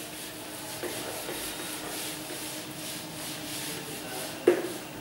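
Whiteboard eraser wiping across the board in repeated, even strokes, with a single short knock near the end.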